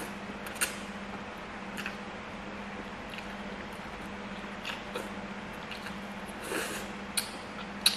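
Slurping and chewing instant noodles eaten with chopsticks, with a longer slurp about six and a half seconds in and several short, sharp mouth clicks and smacks, over a steady low hum.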